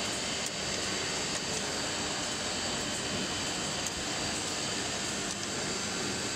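CNC wood router running: a steady mechanical rush with a thin high whine held throughout, as from the spindle and dust extraction, with a few faint ticks.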